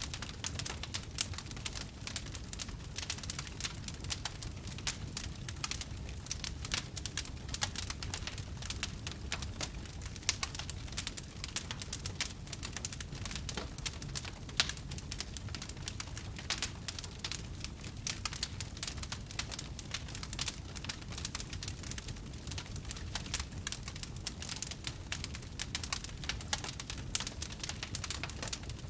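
Wood campfire crackling, with frequent sharp pops over a low steady rumble of the burning fire.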